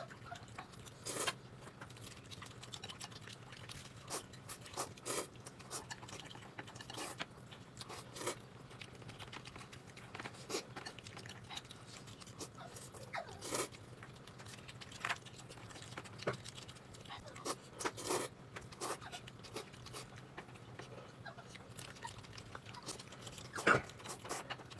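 A person eating: irregular chewing and crunching, with short sharp clicks now and then, over a faint steady low hum.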